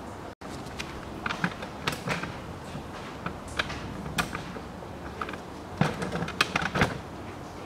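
Irregular light clicks and knocks, most of them in two clusters, one a second or two in and a denser one near the end, over a steady low hiss.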